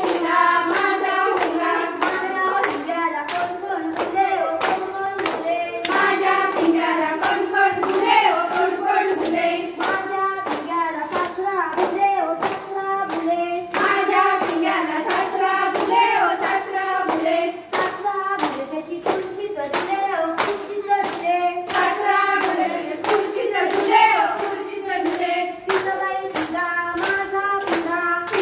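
A group of women singing a fugdi (pinga) folk song together, with steady, quick hand clapping keeping the beat.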